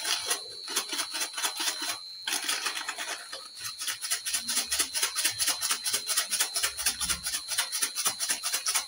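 A small plastic sachet of black salt being shaken and rubbed over a steel bowl: a fast, even run of scratchy rasping strokes, about six a second, with a short break about two seconds in.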